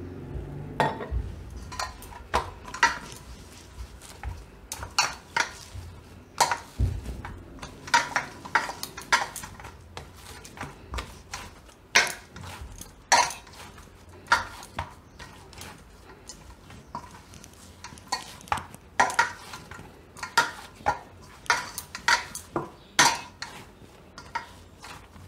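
Dough kneaded by hand in a stainless steel bowl: irregular knocks and clinks against the steel, many of them ringing briefly, a few to several a second.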